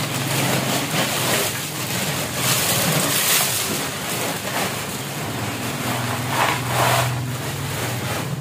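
Hot oil sizzling with a steady hiss as kerupuk crackers fry in a large wok over a wood fire, swelling louder about three and seven seconds in, over a steady low hum.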